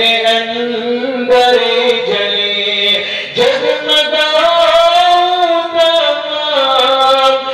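A man's voice reciting a naat, an Urdu devotional poem in praise of the Prophet, as a slow unaccompanied chant with long held notes that waver in pitch.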